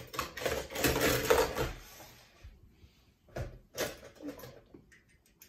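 Small die-cast toy cars clattering against each other and a plastic bowl as hands rummage through them, a dense rattling for about two seconds, then a few separate clicks as a car is picked out.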